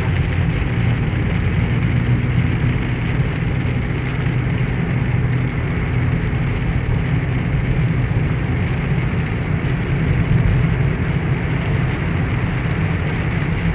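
Steady low rumble of a car driving on a wet road, heard inside the cabin, with rain hiss on the car and tyres on the wet road laid over it.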